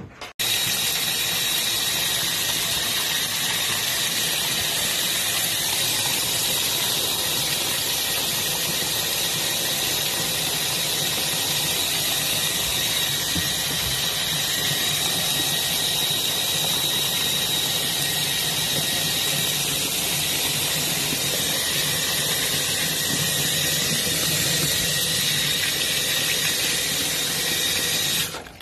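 Top-loading washing machine filling: water spraying into the tub over clothes and suds, a steady hiss with a thin high whistle running through it.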